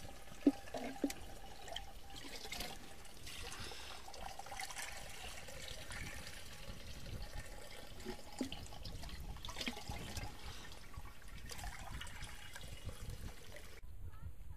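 Liquid trickling and dripping as a boiled cow-urine, tobacco and garlic brew is strained through a thin cloth, with a couple of light knocks in the first second.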